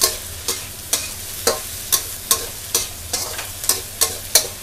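Metal spatula scraping and knocking against a wok about two to three times a second, stir-frying crispy pork belly over a steady sizzle of hot oil.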